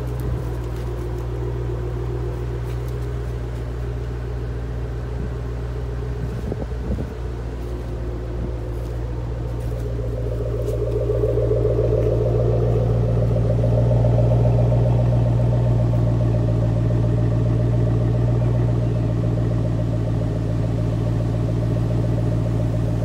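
2010 Shelby GT500's stock supercharged 5.4-litre V8 idling steadily after a cold start. It is heard first from inside the cabin, then at the exhaust tips, where it is louder from about ten seconds in.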